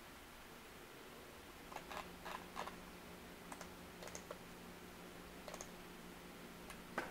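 Faint, sharp clicks of freight-car wheels over rail joints, in irregular pairs and small groups, as a train of covered grain hopper cars rolls past. A low steady hum sets in under them about two seconds in.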